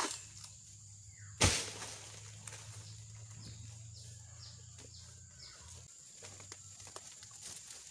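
One sharp thud about a second and a half in, over short bird chirps and a low steady hum that briefly drops out near the six-second mark.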